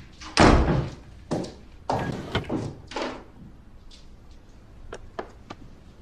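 A door shutting with a heavy thud about half a second in, followed by several lighter knocks and bumps, then a few faint short clicks.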